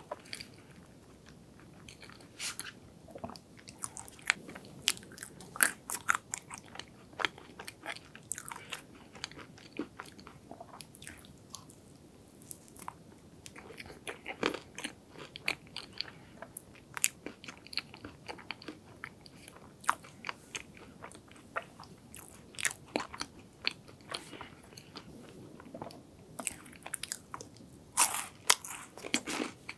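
Close-miked chewing of a mouthful of hazelnut chocolate cake, with frequent irregular sharp crunches, the loudest cluster near the end.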